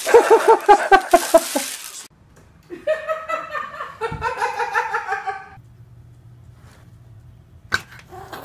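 A person laughing in a quick run of 'ha-ha' bursts, then after a short pause a longer stretch of high laughter. A faint low hum follows in the last few seconds.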